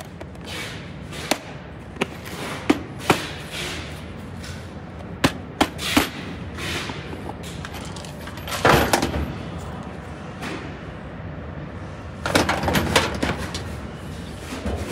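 Handling noise: scattered sharp clicks and knocks, mostly in the first half, and two longer spells of rustling as a sleeve and hands brush against the phone.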